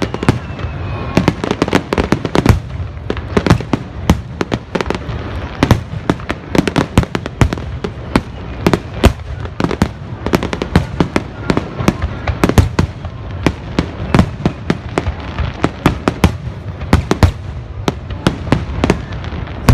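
Fireworks finale barrage: shells bursting in rapid, overlapping succession, several sharp bangs and crackles a second over a continuous low rumble.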